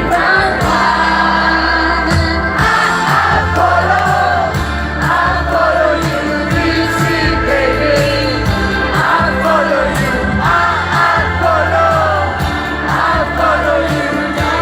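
Live pop song: a woman singing a wavering melody over a steady bass and drum beat.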